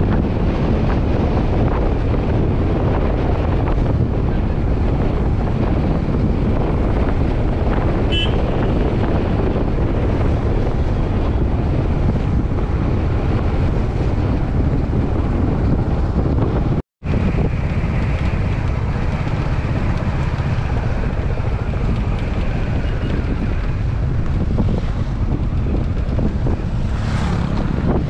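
Steady low rumble of a moving vehicle, with wind buffeting the microphone. The sound cuts out abruptly for a moment about 17 seconds in.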